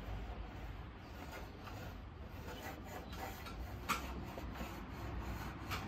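A small steel block plane being pushed along the edge of a timber board, cutting a chamfer in its first light passes that take off only a little of the corner. A couple of sharp clicks sound about four seconds in and near the end.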